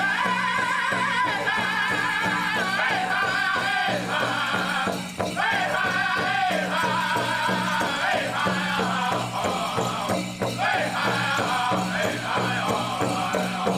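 Pow wow drum group singing high-pitched, wavering lines over a steady, fast beat on a large drum, accompanying a prairie chicken dance contest song.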